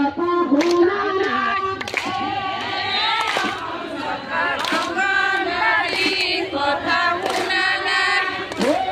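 A group of women singing together in unison, with sharp claps here and there.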